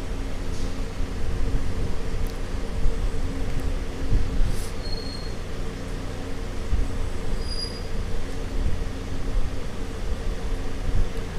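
Steady low rumble with a faint hum, broken by a few light clicks, such as a steel ladle touching the aluminium pressure cooker.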